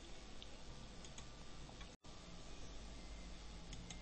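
A few soft computer mouse clicks over faint room hiss and hum, with a momentary cut to dead silence about halfway through.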